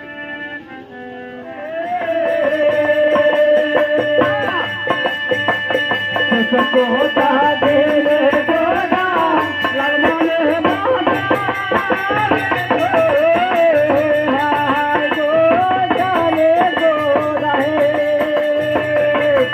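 Loud folk music: a held chord for the first second or so, then from about two seconds in a wavering lead melody over a steady drum beat.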